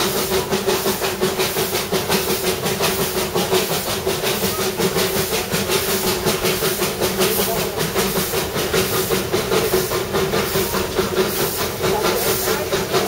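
Narrow-gauge steam locomotive of the Darjeeling Himalayan Railway running, its exhaust chuffing rapidly and evenly, about four to five beats a second, over a steady hiss.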